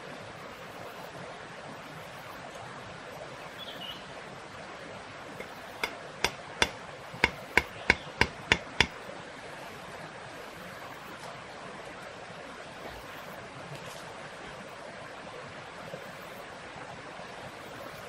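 About nine sharp wooden knocks, roughly three a second, of a knife striking wood, over a steady background hiss.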